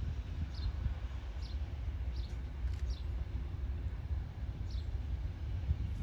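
A small bird calling over and over, short high chirps that slide downward about once a second, over a steady low rumble.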